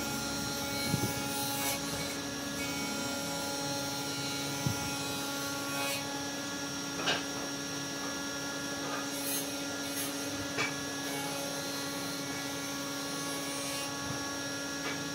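Electric power tool motor running at a steady speed, a constant hum, with a few short knocks through it.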